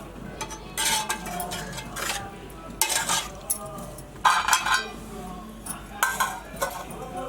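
Metal kitchen utensils scraping and clinking against a metal cooking vessel in about four short bursts of stirring or mixing.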